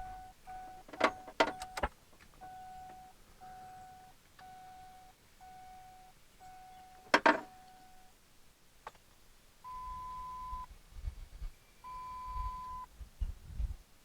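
A full-size Ford SUV's dashboard warning chime, sounding with the key turned on and the door open: a steady chain of short, even beeps about one a second, with a few sharp clicks among them. After a pause, two longer, higher beeps, each about a second long, sound over a low rumble.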